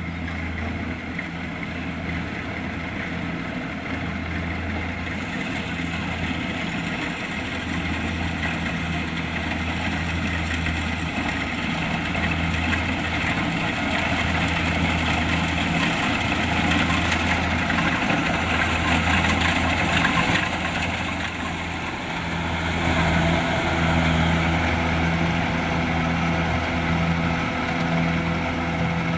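Kubota DC-70 Plus combine harvester running under load, its diesel engine droning steadily, mixed with the clatter and whir of the harvesting machinery.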